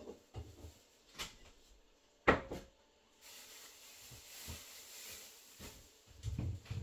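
A kitchen cupboard or door being handled and shut: a click about a second in, then a loud knock just over two seconds in. A soft hiss follows for about two seconds, and there are low thumps near the end.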